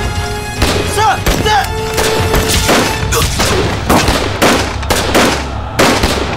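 Staged gunfire of a battle scene: gunshots one after another at an uneven pace, roughly one or two a second. Dramatic background music plays underneath.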